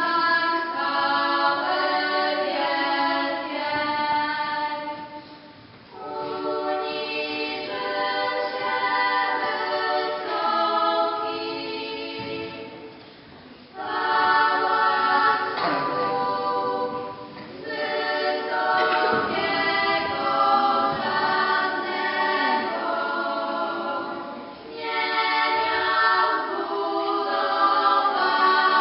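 A small group of girls singing a cappella in harmony, in long phrases with brief pauses between them.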